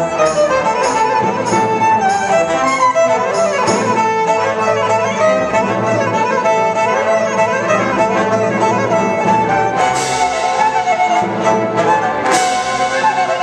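Solo violin playing a melody with vibrato over a symphony orchestra. Percussion strikes come in twice near the end, about ten and twelve seconds in.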